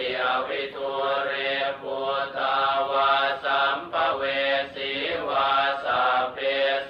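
Buddhist chanting in Pali: a steady, rhythmic recitation with a rising and falling melody, syllable after syllable without a break.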